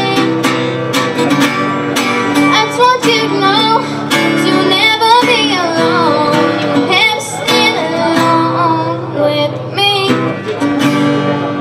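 A young girl singing while strumming an acoustic guitar.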